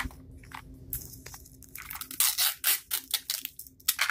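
Wrapping of a Mini Brands capsule ball being torn and peeled off by hand: irregular crinkling and ripping rustles, getting busier about halfway through.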